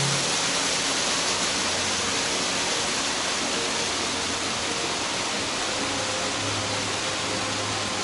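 Mountain stream water rushing down a smooth rock slab waterfall: a steady, even hiss.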